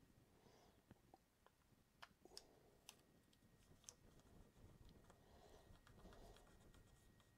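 Near silence, with faint scattered clicks and soft rubbing from fingers handling a 3D printer's heated bed, its thermistor wire and adhesive tape.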